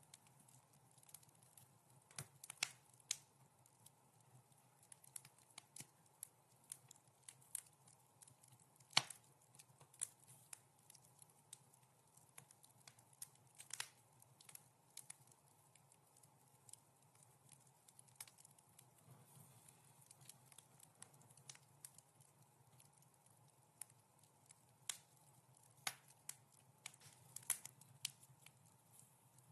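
Wood fire crackling, with irregular sharp pops and snaps, the loudest about nine seconds in, over a faint low rumble.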